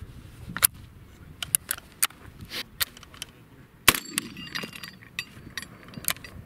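A 12-gauge semi-automatic shotgun, the Catamount Fury II, fires a single shot about four seconds in. The shot is followed by a short ringing. Light clicks of the gun being handled come before the shot.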